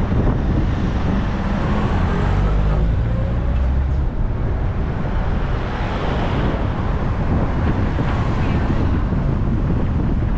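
Wind buffeting the microphone with a steady low rumble, and a motor vehicle's engine hum during the first few seconds.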